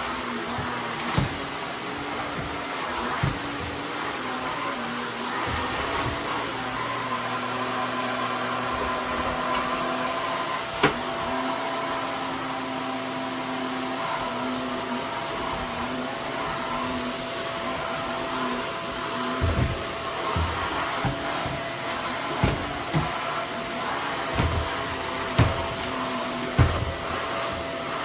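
Vacuum cleaner running steadily as it sucks up crumbled sand-wall debris, with a steady high whine over its rushing noise. From the middle onward a series of knocks and thumps sounds over it.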